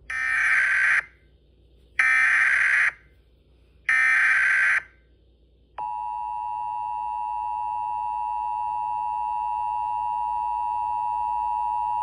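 Emergency Alert System header and attention tones: three one-second bursts of SAME header data about a second apart, then, about six seconds in, the steady two-tone EAS attention signal starts and holds.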